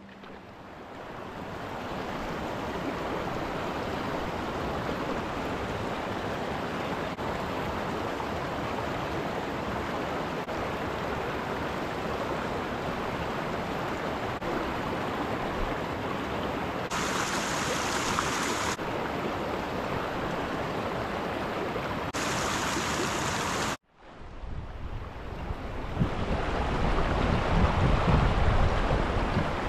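Small mountain creek flowing over rocks, a steady rush of water. Two short spells of brighter hiss come about two-thirds of the way through, and the rush grows louder and heavier near the end.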